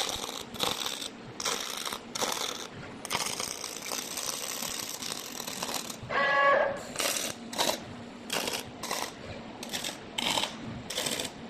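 Robotic arc welding: a series of short bursts of crackling arc noise, each about half a second, with one longer run of about three seconds. About six seconds in comes a brief buzzing tone.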